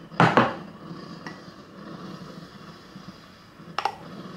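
Metal utensils and a ceramic coffee cup clinking: two sharp clinks close together just after the start, a faint tick about a second later, and a few lighter clinks near the end.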